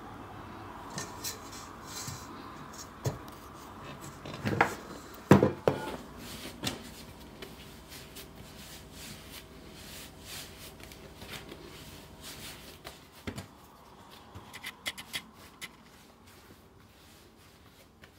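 Hands kneading soft dough on a floured countertop: rubbing and pressing, with two louder thumps about five seconds in and light taps later.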